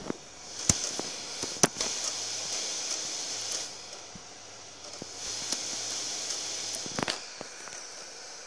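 Xbox 360 console's cooling fan running with a steady airy hiss close to the microphone, fading a little near the middle and coming back, drawing air in at a vent where the owner says there is normally no suction. A few sharp clicks and knocks, loudest near the start and about seven seconds in.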